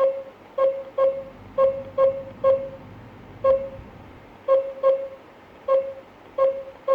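Key-press beeps from a GSM alarm system's control panel: about a dozen short beeps, all at one pitch, coming at an uneven pace as keys are pressed.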